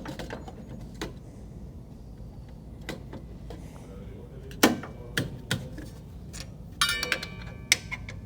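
Scattered clicks and knocks of a SawStop brake cartridge being fitted by hand inside the table saw, with a cluster of ringing metal-on-metal clinks near the end.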